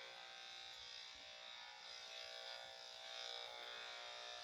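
Electric grooming clippers running with a steady buzz while clipping a dog's coat.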